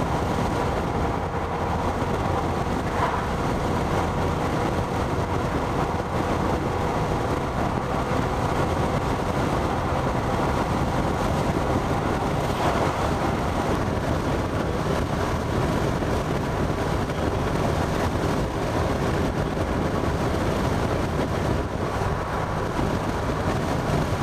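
Steady road and engine noise of a moving vehicle, heard from inside.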